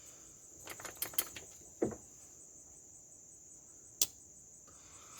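Steady high-pitched insect chorus, with a few light clicks about a second in, a short knock near two seconds and one sharp click about four seconds in as pocketknives are handled.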